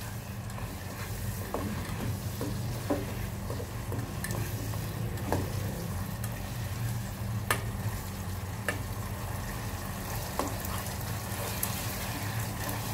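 Spatula stirring minced pork and bean sprouts in a thick sauce in a small pot over a high gas flame. The food sizzles steadily, with scattered scrapes and taps of the spatula against the pot.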